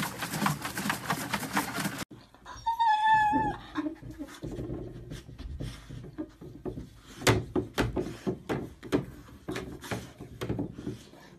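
A cat's single drawn-out meow, then a run of knocks and taps from a plastic cat flap as a dog pushes its head through it.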